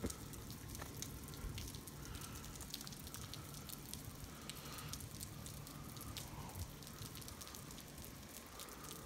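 Faint freezing rain in an ice storm: a steady hiss with many scattered small ticks of drops and ice striking surfaces.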